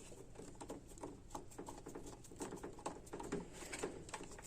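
Faint, irregular light clicks, taps and rattles, several a second, from hands fitting the side pieces and screws back onto a metal power strip housing.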